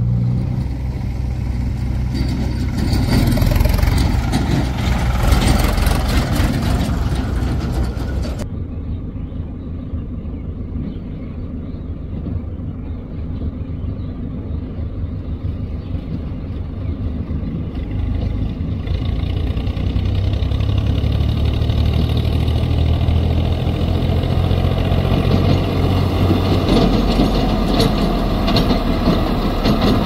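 Diesel engines of a backhoe loader and tractors running at work, a steady low engine note. The sound changes abruptly about eight seconds in and grows louder near the end.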